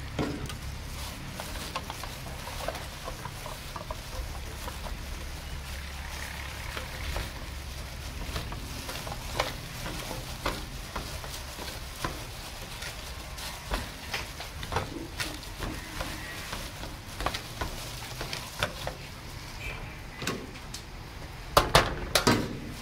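A hand in a plastic bag stirs and kneads chili powder into an oily spice paste in an aluminium pot, making wet mixing sounds with scattered short clicks. Near the end a steel plate knocks sharply against the pot several times. A low steady hum runs underneath.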